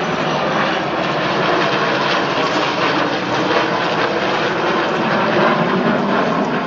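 Engines of a three-plane formation flying overhead, a steady, even noise.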